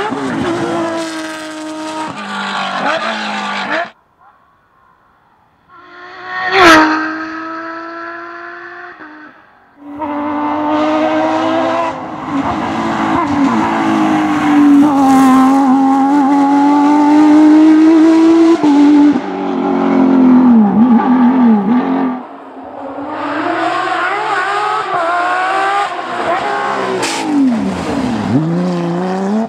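Porsche 911 GT3 rally cars' naturally aspirated flat-six engines at full throttle, in several separate passes with the pitch rising and falling through gear changes and lifts. About seven seconds in, a single sharp bang.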